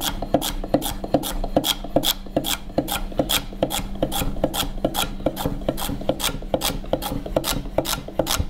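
Dalstrong Omega kiritsuke chef's knife chopping a celery stalk on a wooden cutting board in a rocking chop: a steady run of crisp cuts, about two to three a second, each one the blade crunching through the celery and tapping the board.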